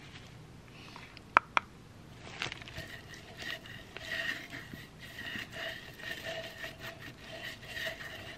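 Paintbrush stroking white glue onto a styrofoam ball: repeated scratchy rubbing strokes with a squeak. Two sharp clicks come about a second and a half in.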